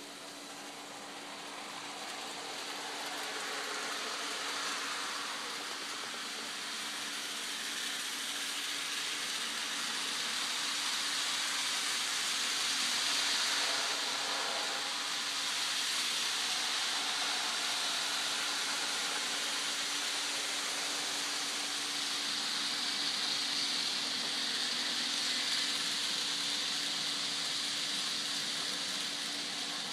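N scale model train running around the layout track: a steady whir and rattle of the small locomotive motors and many cars' wheels, with a steady low hum underneath. It grows slowly louder over the first dozen seconds and then holds.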